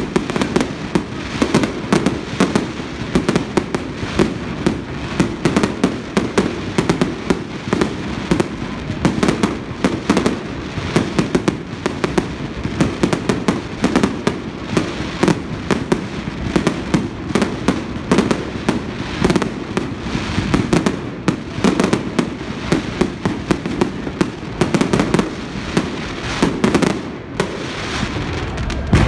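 Many fireworks going off at once: a rapid, unbroken string of bangs and crackles from rockets bursting overhead.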